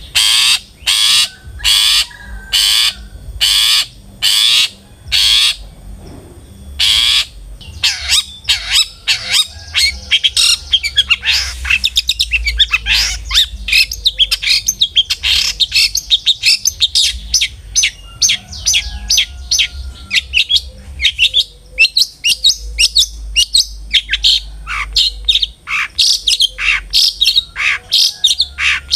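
Long-tailed shrike (cendet) calling and singing: a string of about ten harsh, noisy calls, roughly one every two-thirds of a second, then from about eight seconds in a fast, varied chattering song of many short notes.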